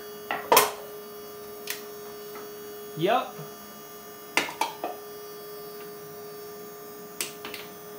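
Desktop CNC machine's axis motors whining steadily on a slow feed move, while an aluminium drink can crumples under it with several sharp cracks, the loudest about half a second in. The machine has the torque to crush the can.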